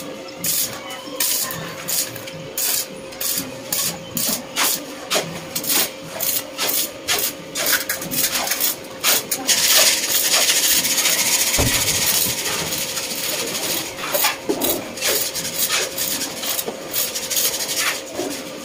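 Metal being worked by hand: quick rasping strokes, about two a second, for the first half, then a steady hiss for the rest, over a constant faint hum.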